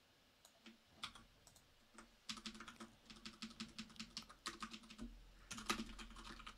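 Typing on a computer keyboard: a run of quick, faint keystrokes that starts about a second in and grows denser after about two seconds.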